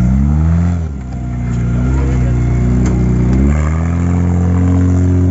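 Extreme off-road buggy's engine revving hard under load as it climbs loose dirt. The pitch dips about a second in, then rises again and holds high near the end as the throttle is worked.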